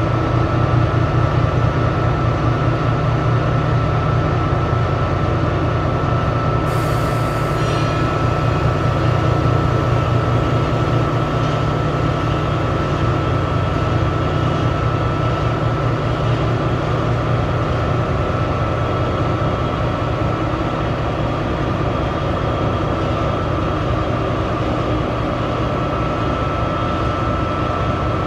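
15 HP Dantco bow-tie mixer running unloaded: its motor turns the disperser shaft and bow-tie blade with a steady low hum and a steady whine. There is a brief hiss about seven seconds in.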